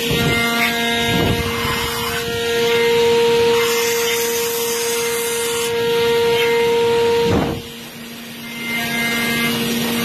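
CNC milling machine cutting water-jacket grooves into a Mazda rotary engine housing with a small end mill: a steady high spindle whine over the noise of the cut. The sound drops briefly about three quarters of the way through, then comes back.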